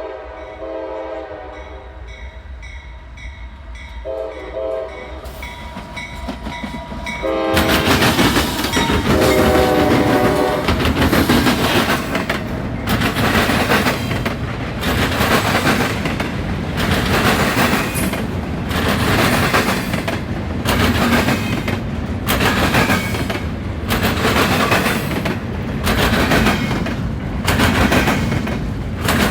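CSX freight locomotive's multi-chime air horn sounding several chord blasts, the last two as the locomotive runs past close by. Then the intermodal train rolls through, its wheels banging over a rail diamond crossing in a steady repeating rhythm, roughly once a second.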